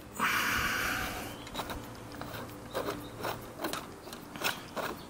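Socket ratchet wrench working a 17mm nut loose on a motorcycle fork cartridge: a rasping run of rapid ratchet clicks near the start, then separate, irregular clicks, a few a second, as the handle is swung back and forth.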